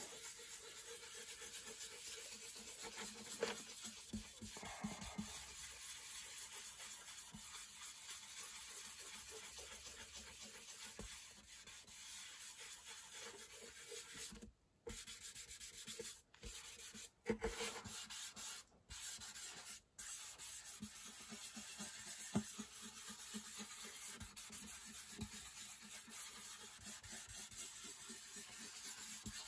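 A small cloth pad rubbing dark dye into the bare wood of an acoustic guitar top: a faint, steady scuffing, broken by a few brief dropouts past the middle.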